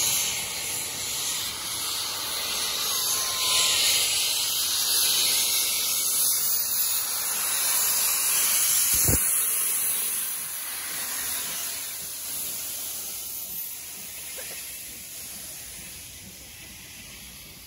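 Steam locomotive (LMS Jubilee class 4-6-0 No. 45596 Bahamas) moving off and letting out a loud, steady hiss of steam that dies away over the last several seconds. A single low thump about nine seconds in.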